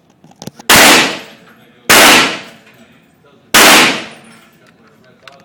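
AR-15 rifle firing three single shots, a second or two apart, each a sharp, very loud crack with a short echoing tail.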